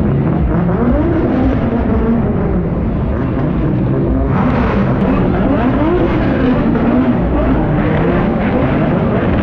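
Lexus LFA's 4.8-litre V10 running hard, its pitch rising and falling again and again as it revs up and eases off, growing brighter about halfway through.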